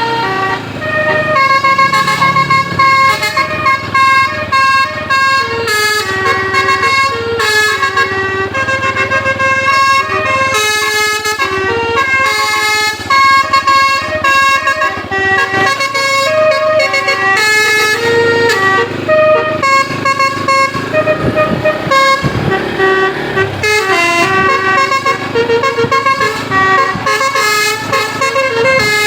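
A tour bus's Basuri 'telolet' multi-tone air horn playing a tune, one note after another in quick steps, with short gaps between phrases.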